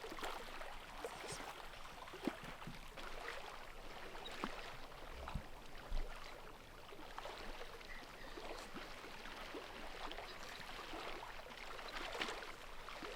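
Lake water lapping and gurgling against the shore, with scattered small clicks and a couple of soft knocks.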